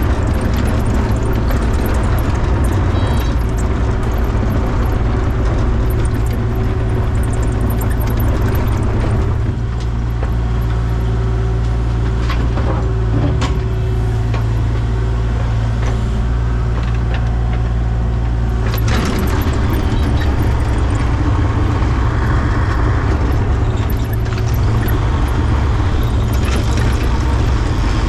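Heavy equipment diesel engine running steadily at constant speed with a deep rumble, and a few short knocks partway through.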